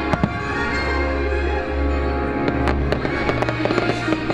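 Fireworks going off in sharp bangs and crackles over continuous show music: a few bangs right at the start, one about halfway through, and a quicker run of them near the end.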